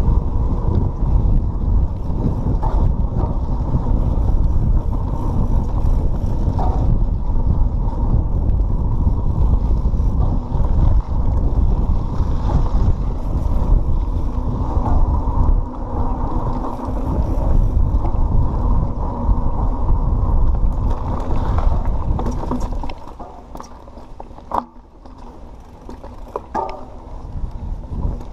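Riding noise from a Pivot Switchblade 27.5+ full-suspension mountain bike on a dirt trail: a steady low rumble of tyres and rushing air. About 23 seconds in it drops away, leaving lighter rattles and a few sharp clicks from the bike.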